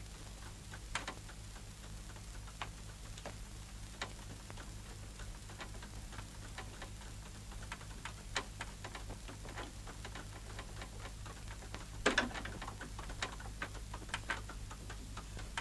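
Quiet, irregular clopping and clicking of a horse's hooves and a light horse-drawn carriage rolling along a dirt track, coming more often toward the end, with a louder rattle about twelve seconds in, over a steady low hum.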